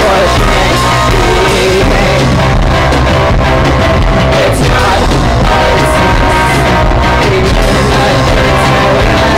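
A rock band playing live, guitars to the fore, with a woman singing over it.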